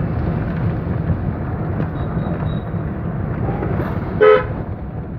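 Steady rumble of a moving vehicle and wind on the microphone, with one short horn beep about four seconds in.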